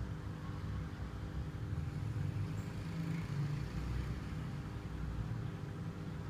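Steady low mechanical hum made of several fixed tones, with an uneven low rumble beneath it.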